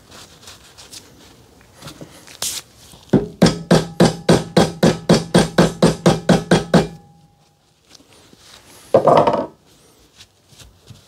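A steel ATV A-arm clamped in a vise is struck quickly with a hand tool, about fourteen sharp knocks at roughly four a second, and the arm rings under them. Later comes a short rough scrubbing sound as a rag wipes the bore.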